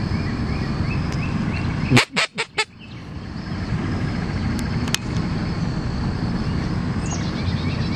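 Teal duck call blown in a quick series of four loud quacks about two seconds in, imitating a blue-winged teal hen, over a steady low rumble.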